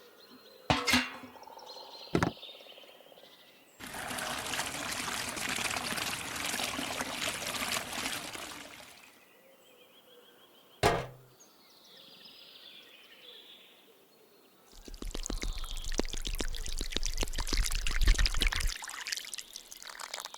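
Material being poured in two spells of several seconds each, the second with a dense patter of fine ticks, with a few sharp knocks in between.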